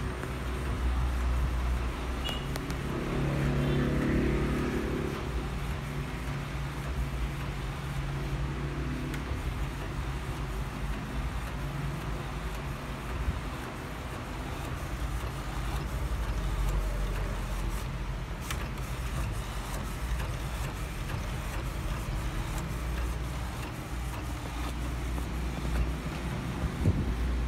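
Epson L1300 inkjet printer running while it prints a sheet of stickers and feeds it out, over a steady low rumble.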